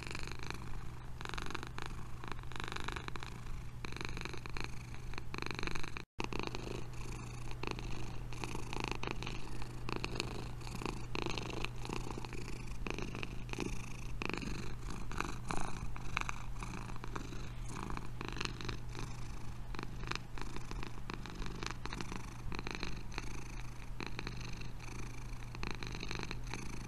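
Domestic cat purring, a steady rapid rumble. It breaks off for a moment about six seconds in, then carries on.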